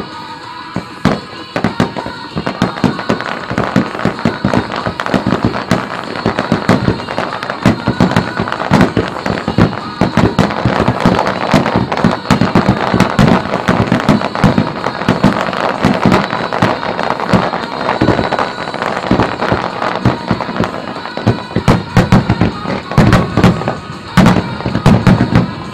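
Starmine fireworks barrage: rapid, overlapping launches and shell bursts crackling almost without a break. The bangs grow heavier and louder in the last few seconds.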